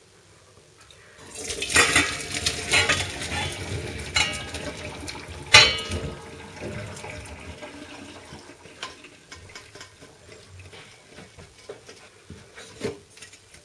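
Cooked cardoon pieces and their cooking water poured from a steel pot into a perforated metal colander in a stainless steel sink: a splashing rush starting about a second in, with metal clanks and clinks, the loudest clank about six seconds in, then trailing off into scattered clinks as the cardoon drains.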